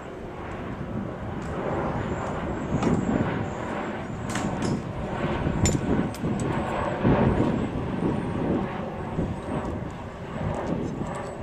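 Large bus engine running at idle: a steady rumble that swells and eases, with a few sharp clicks and knocks near the middle.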